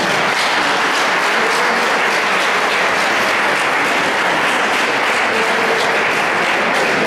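An audience applauding, with dense, even clapping.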